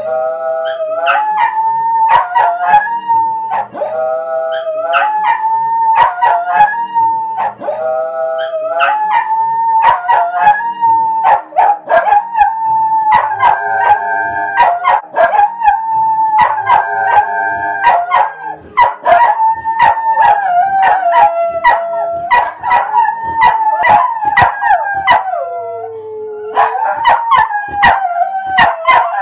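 Dog howling along to music: long howls that hold a note, then slide to another, one after another.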